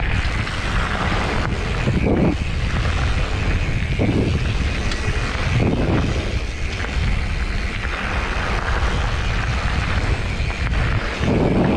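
Mountain bike riding a loose gravel trail: a steady low wind rumble on the camera's microphone over the hiss and crunch of tyres on stones, with a few short louder jolts along the way.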